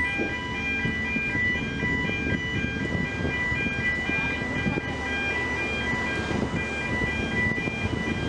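Small car ferry's machinery running as it pulls away from the slipway, a steady low rumble with a high pulsing electronic tone sounding over it.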